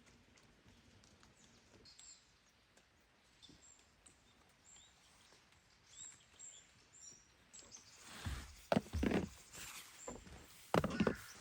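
Small birds giving short, high chirps over quiet forest ambience, then from about eight seconds in a few loud rustling thumps close by.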